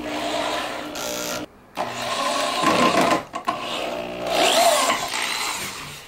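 Power drill with a long driver bit driving Kreg pocket-hole screws into a clamped pine drawer joint, in three runs, the motor's pitch dipping and rising near the end as a screw draws tight.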